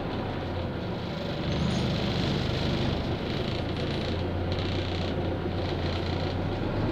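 Steady engine hum and road noise heard from inside a moving road vehicle.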